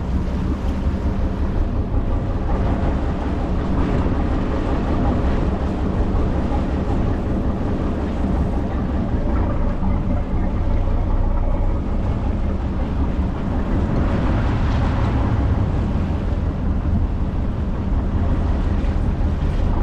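Tour boat's engine running steadily under way, a constant low drone with wind on the microphone over it.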